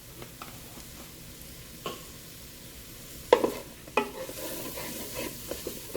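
Onion, mushrooms, garlic and sun-dried tomatoes sizzling in oil in a Ninja Speedi pot on the sear setting, with a utensil knocking and scraping against the pot as they are stirred. The sharpest knocks come about three and a half and four seconds in, and the sizzle grows louder toward the end.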